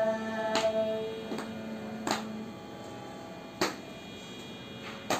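The last sung note of a Carnatic verse, held by girls' voices and fading away in the first second or two. After it come sharp claps, one about every second and a half, from hands keeping the tala.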